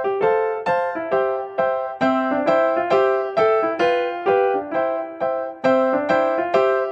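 Background music played on a piano-like keyboard: a melody of evenly spaced notes, each struck and fading, about three a second.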